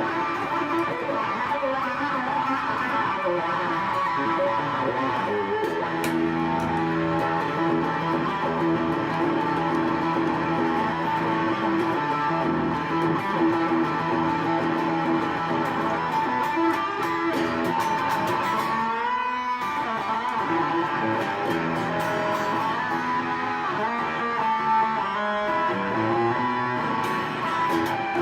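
Electric guitar played through a BOSS DS-2 Turbo Distortion pedal, giving distorted chords and long held notes. There is a short break about two-thirds of the way through.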